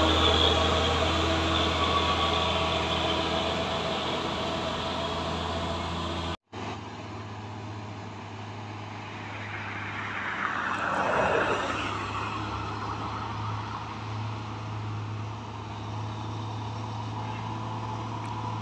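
Heavy truck's diesel engine running as it passes close by, fading over the first few seconds. After a cut about six seconds in, another truck's engine drones more faintly from farther off, with a falling glide of a passing vehicle around halfway.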